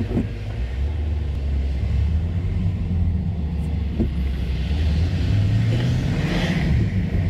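Car engine and road noise heard from inside the cabin: a steady low rumble that slowly grows louder as the car pulls away and drives on. A brief swell of hiss comes about six seconds in as an oncoming car passes.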